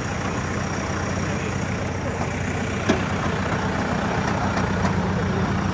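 Vehicle engine running steadily, with one sharp click about three seconds in.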